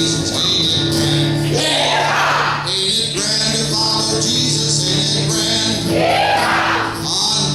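Congregation singing a country gospel song with a band, breaking out twice into loud swooping cowboy yells of "Yeah!" at the ends of lines.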